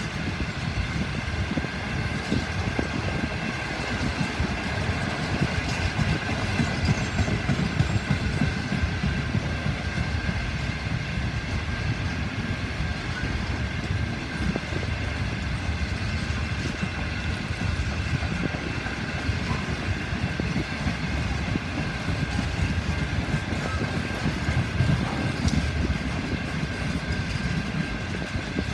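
Freight train of covered hopper wagons rolling past: a steady rumble of steel wheels on rail with quick irregular clatter. A steady whine sits above it throughout.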